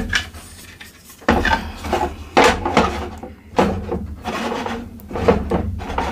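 Toy playset pieces being handled and fitted into place: a click, then, from about a second in, a run of irregular knocks, clicks and scraping rubs.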